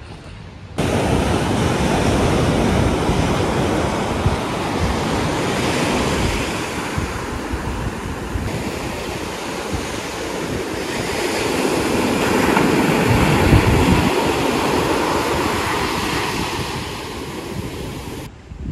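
Ocean surf washing in, with wind buffeting the microphone; the rush swells to its loudest about two-thirds of the way through. It starts suddenly just under a second in and cuts off shortly before the end.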